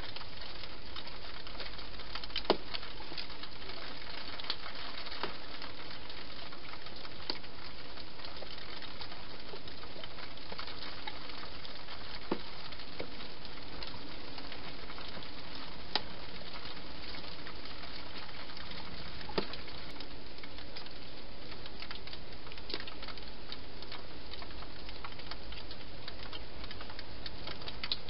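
Steady hiss with scattered sharp clicks and taps every few seconds, from a wild hedgehog feeding and moving about in a clear plastic feeding box.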